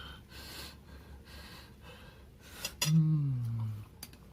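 A man breathing audibly in and out, in repeated hissing breaths. About three seconds in comes a sudden loud vocal exclamation that falls in pitch over about a second, like a gasping sigh.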